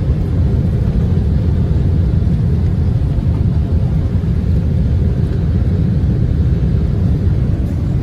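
Steady low rumble of engine and airflow noise inside the cabin of a Boeing 747-8 airliner descending on approach.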